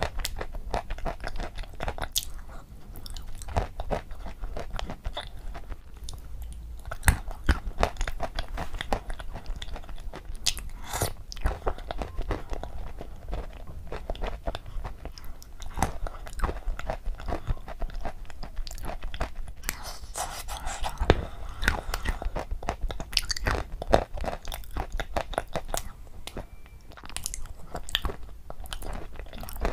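Close-miked mouth sounds of eating a thick, creamy white dessert by the spoonful: wet chewing and lip smacking with many irregular sharp clicks and crackles.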